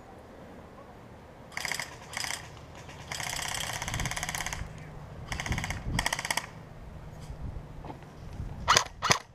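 Airsoft guns firing: several short full-auto bursts, one lasting about a second and a half, then a quick string of louder single shots near the end.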